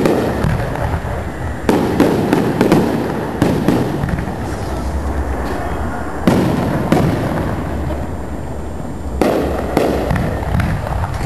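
Aerial firework shells bursting, a string of sharp bangs in irregular clusters, each followed by a rolling echo.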